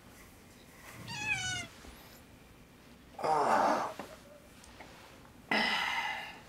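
A domestic cat meows once with a falling pitch about a second in. A louder, rough sound follows about three seconds in, and a longer, steadily pitched cry near the end.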